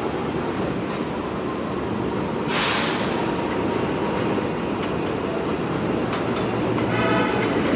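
R143 subway train approaching on elevated steel track with a steady rumble of wheels on rail. A short burst of air hiss comes about two and a half seconds in, and a brief whine near the end.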